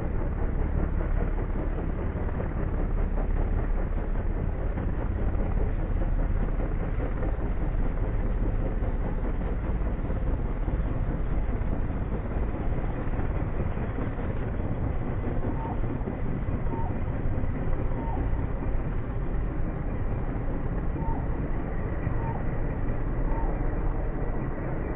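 Helicopter flying overhead: a steady, deep rumble of rotor and engine noise that holds an even level throughout.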